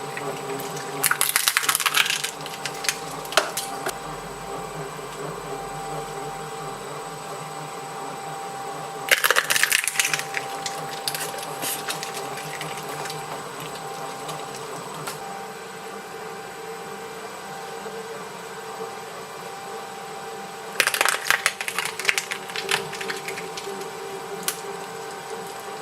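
Small shredding machine running steadily with a motor hum, breaking into loud crackling, tearing bursts three times, about a second in, about nine seconds in and near twenty-one seconds in, as a dog toy is torn up in its cutters.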